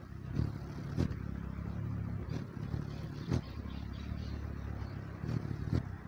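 Hummingbird's wings humming low and steadily as it hovers at a nectar feeder, with a few short sharp clicks.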